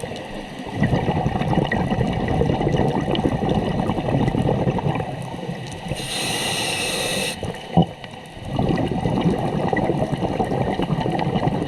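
Scuba diver breathing underwater through a regulator: a long bubbling exhalation, a short hissing inhalation about halfway through, then another bubbling exhalation. There is a single sharp click just after the inhalation.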